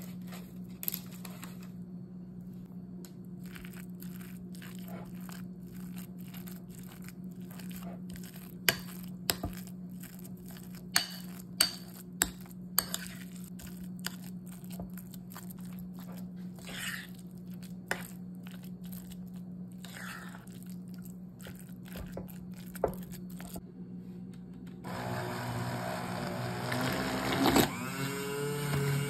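A metal spoon scraping and clicking against a ceramic bowl as soft roasted shredded pumpkin is mashed, with sharp taps scattered through and a steady low hum underneath. About 25 seconds in, a hand-held immersion blender starts and runs, its pitch shifting as it purées the pumpkin.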